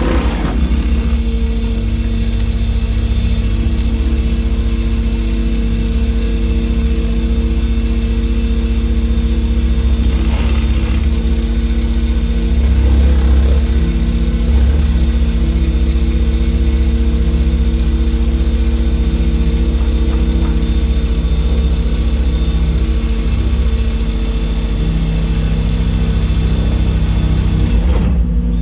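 Excavator's engine and hydraulics running loudly and steadily under load while its pile-driving attachment drives a wooden piling into the ground, a constant low drone with a steady hum, swelling a little just before halfway.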